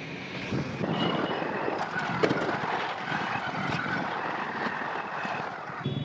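Steady road traffic noise, with vehicle engines running, beginning about half a second in.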